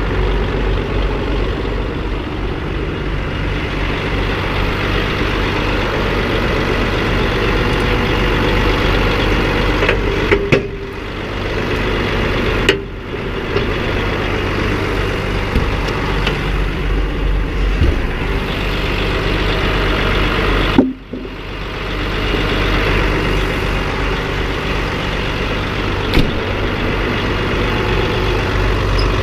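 A DAF eight-wheel grab lorry's diesel engine idling steadily, with a few brief drops in level.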